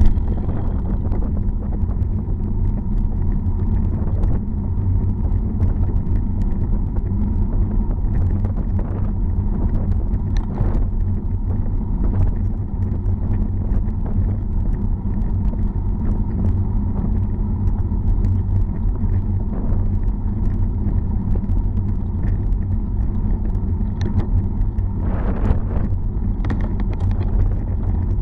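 Steady low rumble of wind buffeting a bike-mounted camera's microphone, with tyre noise on tarmac, while riding a road bicycle. Faint scattered clicks and knocks run through it.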